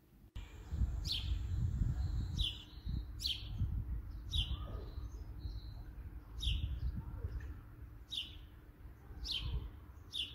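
A small songbird calling outdoors: sharp chirps that fall in pitch, repeated about once a second with a few longer gaps, over a low rumble.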